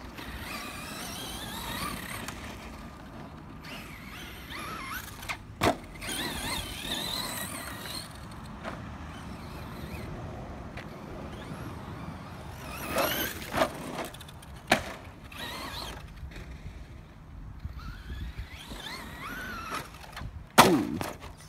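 Brushless electric motor of a Traxxas Slash 2WD RC monster truck whining, rising and falling in pitch as the truck accelerates and lets off over dirt jumps. It is punctuated by several sharp knocks of the truck landing, the loudest near the end.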